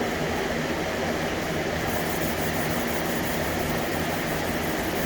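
Hand sanding of a helmet's clear coat with K800 abrasive: faint, quick scratching strokes become audible from about two seconds in, over a steady rushing noise with a low hum.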